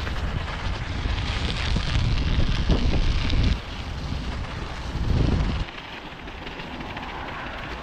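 Wind rumbling on the microphone of a moving bicycle, over the rolling noise of studded tyres on an icy road. The heavy rumble drops away about three and a half seconds in, comes back briefly, and stops for good about two thirds of the way through, leaving a quieter rushing.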